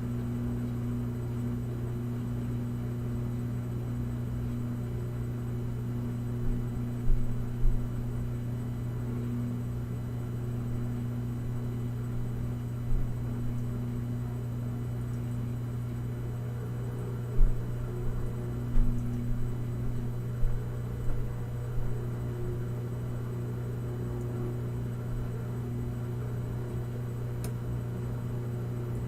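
Washing machine running its spin cycle with a steady low hum, and a few short low thumps about a third of the way in and again in a cluster past the middle.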